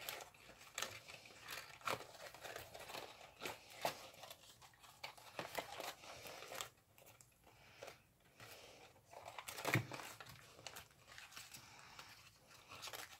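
Yellow origami paper crinkling and rustling in the fingers as a paper butterfly's antenna is pinched thin and bent outward: faint, irregular crackles, with one louder crackle near ten seconds in.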